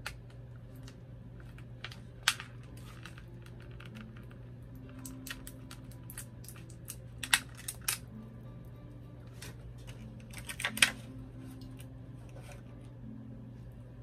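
Toy packaging being handled: irregular sharp clicks and crackles from a clear plastic bag and a cardboard box, with the loudest snaps about two seconds in, twice around seven to eight seconds, and near eleven seconds, over a steady low hum.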